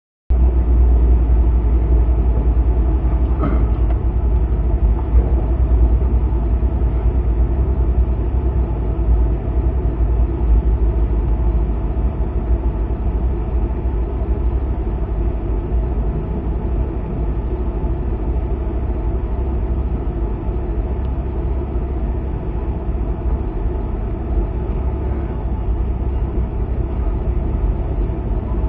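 Steady low rumble of a car under way, with engine and road noise heard from inside the cabin.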